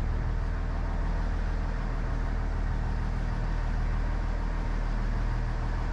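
Fishing boat's engine idling: a steady low hum that holds even throughout.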